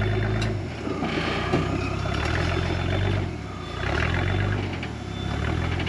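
Rock buggy engine working a boulder climb, the throttle pushed on and eased off so the engine swells and drops back twice, with a faint whine rising and falling early on.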